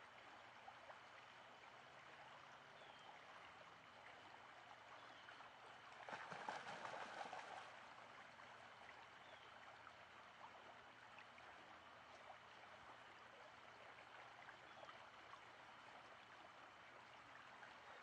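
Faint, steady flow of creek water, with a louder swell of noise lasting about a second and a half some six seconds in.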